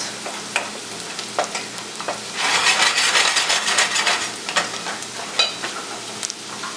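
Chopped onion sizzling in butter and olive oil in a steel pot over medium heat while a wooden spoon stirs it, with scattered light clicks from the spoon. This is the soffritto being sweated until the onion turns transparent, before the rice goes in. The sizzle and stirring grow louder for a couple of seconds around the middle.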